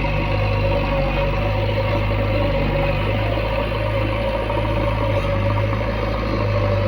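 Backhoe loader's diesel engine running steadily at a constant speed, with a steady hum above the low engine note.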